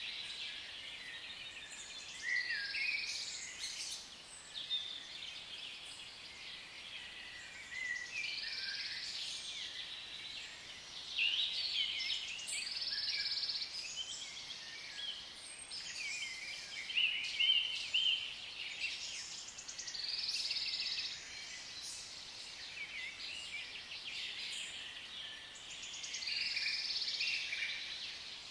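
Forest ambience: birds chirping and calling over a steady high hiss, with louder swells of a second or two every few seconds.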